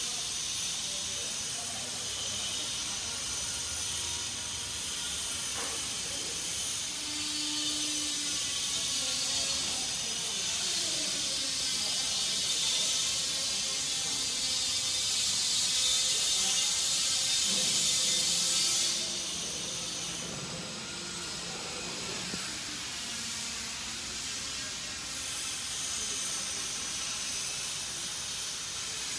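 A steady high-pitched hiss that grows louder toward the middle and drops away abruptly about two-thirds of the way through, over faint indistinct background sounds.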